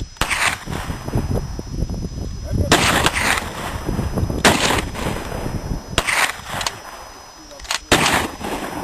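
Gunfire: five separate shots or very short bursts, irregularly spaced one to two seconds apart, each with a brief echoing tail.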